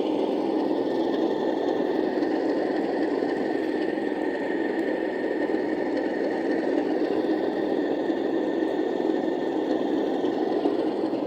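DCC sound decoder in an OO gauge Class 37 model locomotive playing the diesel engine idling sound through its small onboard speaker: a steady hum with a thin high tone over it.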